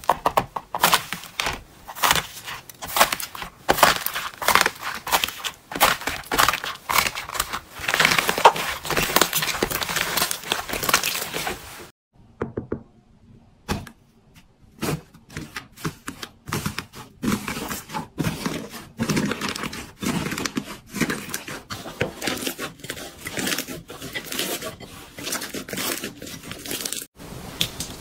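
Slime being squeezed, poked and stretched by hand, giving rapid sticky clicks, pops and crackles. It breaks off for about two seconds near the middle, then starts again with a deeper, squelchier popping.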